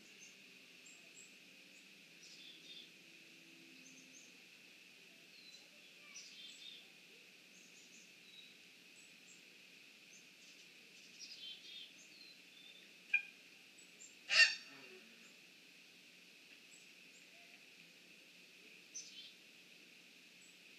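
Two loud bird calls, a short one about 13 seconds in and a louder one about a second later, over faint scattered small-bird chirps and a steady faint high hiss.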